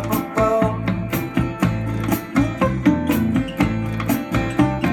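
Music with guitar and a steady beat, played back through Philips FX55/12 mini-system speakers driven by a NAD C315BEE amplifier.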